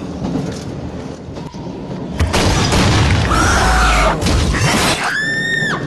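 A jump-scare sound effect: about two seconds in, a loud deep boom with a crashing, shattering noise, followed near the end by a high, shrill, held shriek lasting under a second. Beneath it at the start is the quieter steady running noise of the train.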